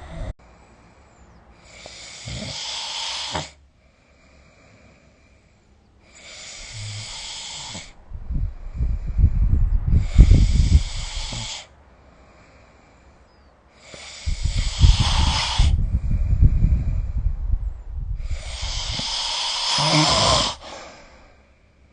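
A sleeping person snoring, breathing every few seconds. Some breaths are airy and hissing. Two are long, loud, fluttering snores, starting about eight and fourteen seconds in.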